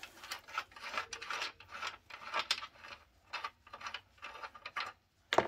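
Irregular scraping and rubbing of tools and parts being worked on an electric scooter being dismantled, with a sharp click about five seconds in.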